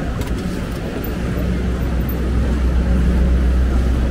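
Steady low engine drone of a vehicle close by, swelling a little from about a second and a half in, over background street noise.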